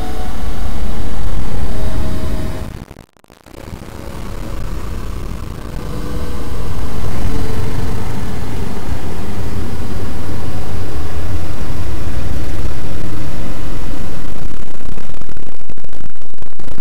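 Electronic noise music made from synthesized red noise: a dense rumbling noise, heaviest in the low end, with a few faint held tones above it. It drops out briefly about three seconds in, then builds back up and holds loud.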